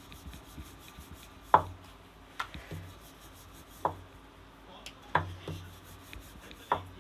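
Wooden rolling pin rolling out a small round of gujiya dough on a round board: a soft rolling rub, broken by about five sharp knocks at uneven intervals as the pin and board clack, the loudest about one and a half seconds in.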